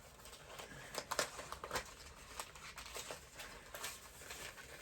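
Hands handling a plastic toy doll: scattered light clicks and rustles as parts are worked gently.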